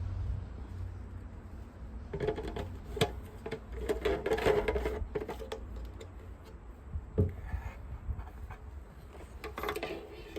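Hands handling the humidifier's plastic parts and packaging: irregular rubbing, light knocks and clatter in several short spells, with a few sharp clicks, over a low steady hum.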